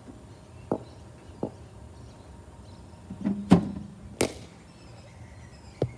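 A cricket bowling machine fires a ball with a short hum and a loud thump about three and a half seconds in. Less than a second later the ball cracks off the bat with a ringing tail. There are a few lighter knocks before and one near the end.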